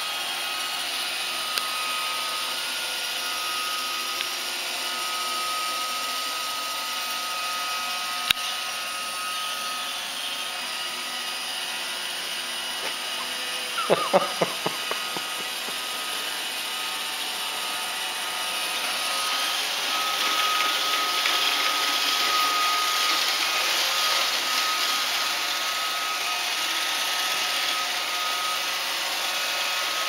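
iRobot Roomba robot vacuum running, a steady whirring hiss with a faint whine that comes and goes. There is a quick run of sharp clicks about halfway through. About two-thirds of the way in the sound grows louder and hissier as the robot moves from carpet onto the slate tile floor.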